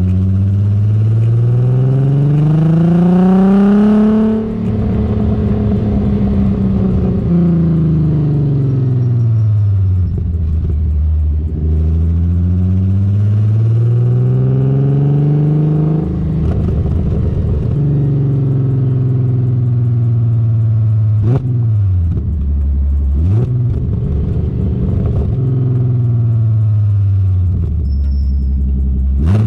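Exhaust of a Corrado SLC's swapped-in 3.6-litre VR6 (BLV), breathing through a custom exhaust with a Magnaflow muffler, under way: the engine pulls up in revs for about four seconds, drops off, then builds again. The revs rise and fall several more times, with quick dips and recoveries near the end.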